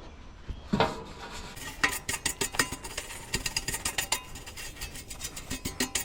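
Rapid, irregular metallic clicks and clinks of metal parts or tools being handled, starting about a second in.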